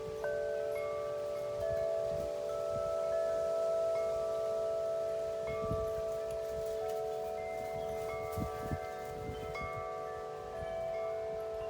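Wind chimes ringing in the wind: tones are struck at irregular moments and ring on long, overlapping one another. A few gusts buffet the microphone about halfway through and again a little later.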